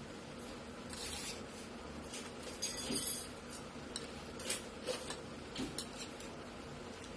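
Spoon and fork scraping and clinking against a plate while eating, in irregular strokes: a run of scrapes about three seconds in, then several sharper single clinks in the second half.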